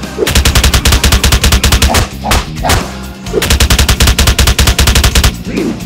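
Machine-gun fire in two rapid bursts, each about a second and a half long, with a short gap between them.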